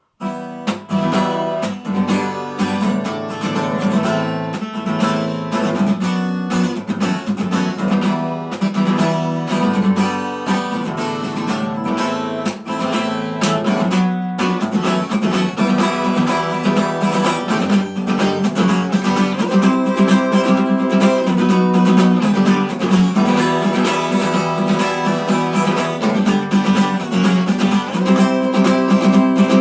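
Acoustic guitar strummed in a steady rhythm, chord after chord, without singing; it starts abruptly right at the beginning.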